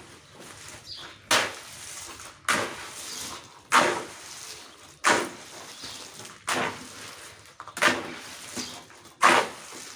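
Steel shovel digging and scraping into a wet pile of gravel, sand and cement, turning the concrete mix over by hand in seven regular strokes about a second and a quarter apart, each a sharp scrape followed by a gritty rattle of stones.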